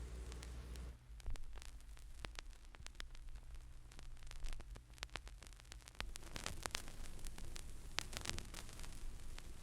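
Vinyl record surface noise from an old turntable during a stretch of groove with no music: scattered crackles and pops over hiss and a low rumble.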